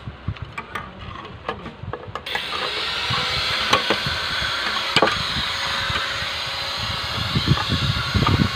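Hand rebar bender working a steel bar into a stirrup on a nailed wooden jig: sharp metal clinks and knocks as the bar is levered around. About two seconds in, a louder steady hissing noise starts suddenly and runs on under the knocks.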